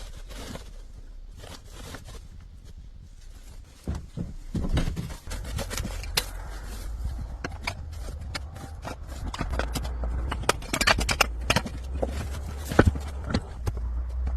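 Irregular scraping and sharp knocks, sparse at first and busier and louder in the second half, over a steady low rumble.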